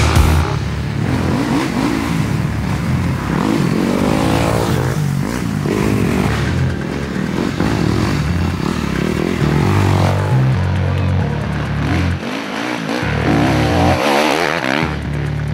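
Off-road dirt bike engines revving hard, pitch rising and falling as they pass and shift, with the loudest rev near the end, over heavy rock music.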